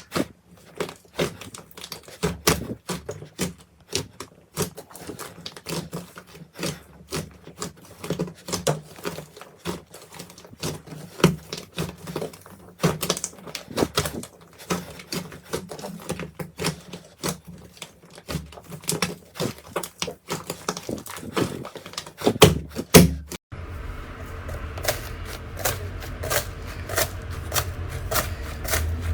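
Slime being squeezed and pressed by hand, giving rapid, irregular sharp clicks and pops. About three-quarters of the way through it cuts to another slime clip with a steady low hum under the clicking.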